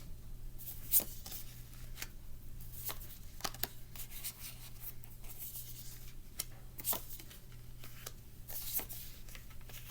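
Tarot cards being handled and shuffled: scattered soft clicks, taps and rubs, over a steady low hum.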